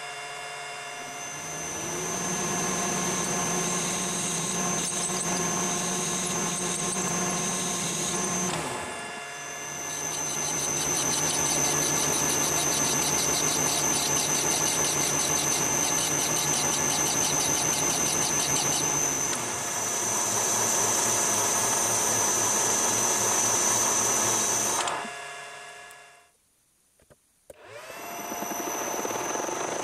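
Metal lathe running with a steady whine, briefly dipping about a third of the way in. Over the middle stretch a fast rhythmic rasp comes from a hand tool held against the spinning stock. The lathe cuts out near the end, then spins up again with a rising whine.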